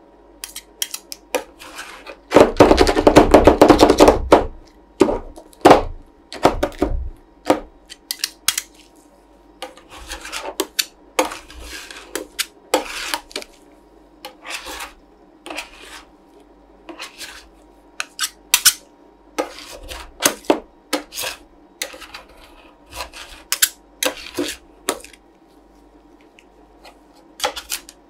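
Two steel spatulas chopping and scraping chocolate lentils into ice cream mix on the frozen stainless steel plate of a roll ice cream machine, with sharp metal taps and scrapes; a fast, loud run of chopping strikes about two to four seconds in.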